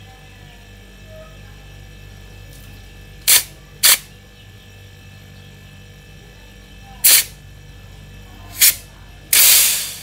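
Short hissing spurts from an open refrigerant line at a fridge compressor as the flushing pushes gas and thick oil out: four brief spurts, then a longer, louder one near the end. A steady low hum sits underneath.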